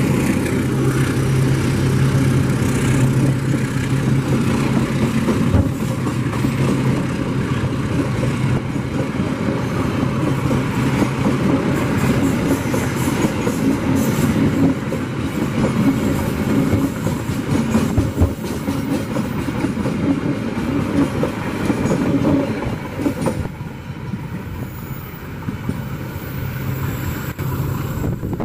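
GE CC206 diesel-electric locomotive running slowly through with a steady low engine drone, then its passenger coaches rolling past with a broad wheel rumble and occasional knocks over rail joints. The train is held to a slow speed on the uphill grade, and the sound drops off near the end as it pulls away.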